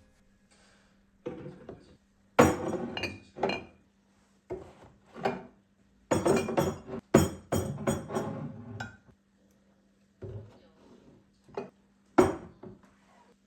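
Glassware and dishes clinking and clattering as they are handled, in irregular bursts of knocks, with a faint steady hum underneath.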